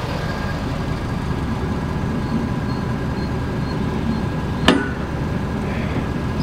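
Pickup truck engine idling with a steady low rumble, and a single sharp metal clink about three-quarters of the way in from the Rota-Flex fifth-wheel hitch's release handle. The handle is not pulling out, with too much trailer weight resting on the hitch.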